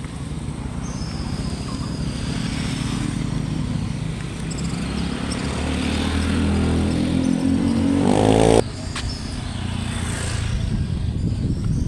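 A motor engine running and growing louder, its pitch rising for a few seconds before it cuts off suddenly about eight and a half seconds in; a rougher low rumble goes on after it.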